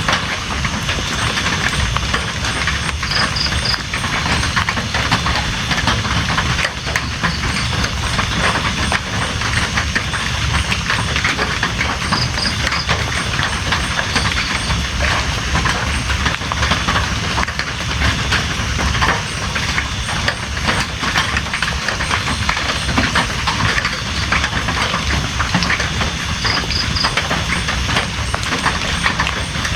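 Steady heavy rain, a dense even hiss with many small drop ticks and a low rumble underneath. Faint high chirps repeat in short runs throughout, and a brief three-note pip sounds three times.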